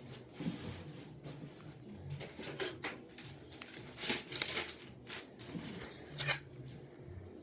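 Scattered light clicks and short scrapes of a small screwdriver and phone parts being handled during an iPhone 5c teardown, the loudest about four and six seconds in.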